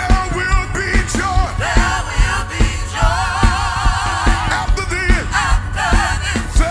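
Live gospel praise and worship: a praise team sings over a band with a steady drum beat, voices holding a long wavering note in the middle.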